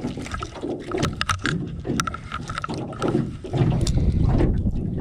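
Water lapping an aluminum boat hull and wind rumbling on the microphone, with scattered clicks and knocks from a small speckled trout and fishing tackle being handled. A few short high peeps sound about one to three seconds in.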